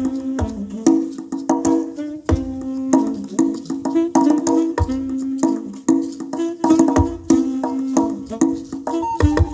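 Live saxophone playing a melody of held notes over a percussion beat of sharp, wood-block-like clicks.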